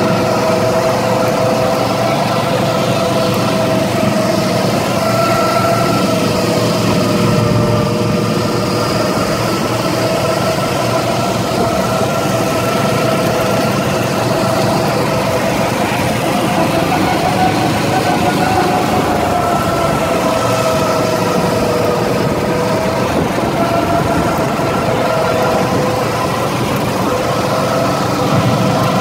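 Go-kart's small gas engine running steadily, heard from on board, its pitch drifting gently up and down with the throttle through the turns.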